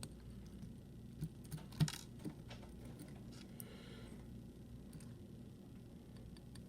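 Small metal clicks and taps from handling the parts of a Yale Superior euro lock cylinder as its dimple key pins are taken out of the core, with a short cluster of sharper clicks about two seconds in.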